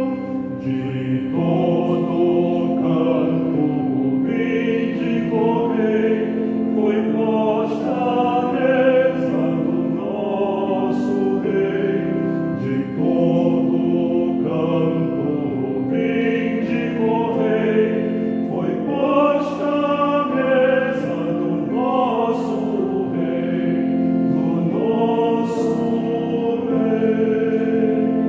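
Choir singing a Portuguese-language Catholic hymn over sustained, held-chord accompaniment.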